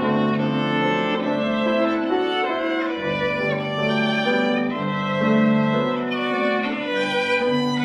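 Background music: a violin playing a slow melody of held notes, with lower sustained notes beneath.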